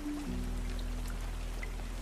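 Slow ambient music of sustained low held notes, with a chord change about a quarter second in, over a steady rain sound with scattered drips.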